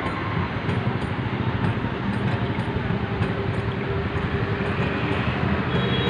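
A motor vehicle engine running steadily close by, a low, constant noise.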